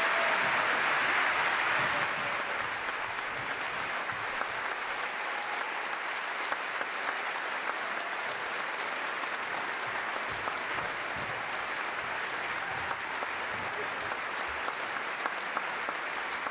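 Concert audience applauding after a number, loudest in the first couple of seconds and then steady.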